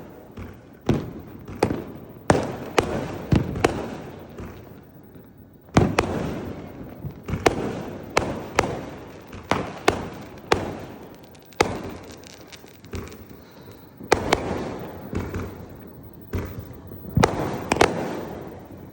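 Firecrackers going off in a long, irregular string of sharp bangs, about one or two a second, each with an echoing tail.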